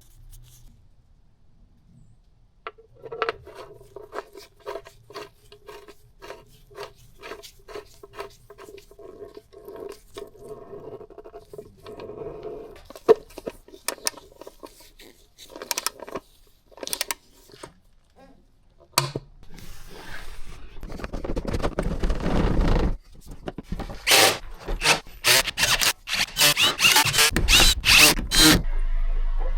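Hand tools working a car's oil drain bolt back in: a long run of regular clicks, then louder scraping and clattering in the last third.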